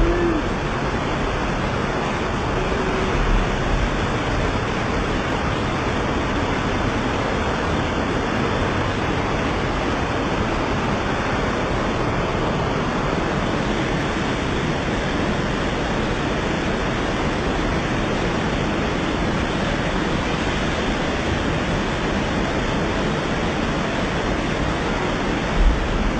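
Torrential rain pouring down, a steady dense hiss of falling and running water.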